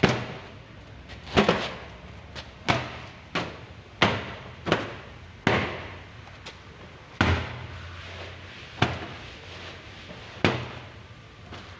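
A series of sharp knocks or bangs at irregular intervals, roughly one a second, each dying away quickly, over a faint steady low hum.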